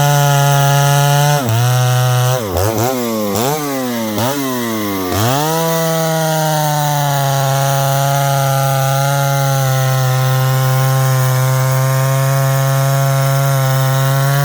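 Stihl 076AV two-stroke chainsaw running at high revs, its speed dropping and picking back up several times in quick succession between about one and a half and five seconds in, then holding steady at high speed.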